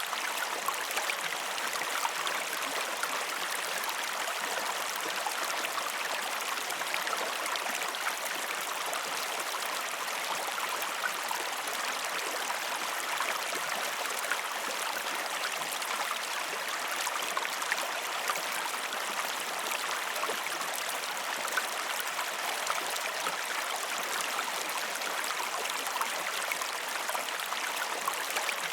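River water flowing and babbling over stones: a steady, even rush with fine splashing detail.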